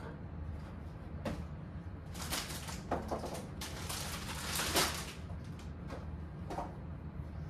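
Plastic packaging rustling and crinkling for a few seconds as it is pulled out and handled, with a few light knocks of items being set down.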